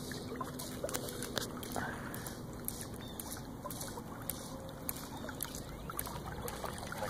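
River water sloshing and trickling, with scattered small clicks and splashes.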